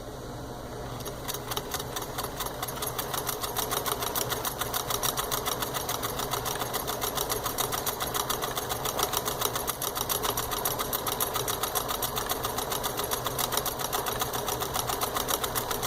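Pfaff 362 sewing machine running at a steady speed, starting about a second in, its needle mechanism clicking in a fast even rhythm as it sews a built-in stitch pattern on fabric.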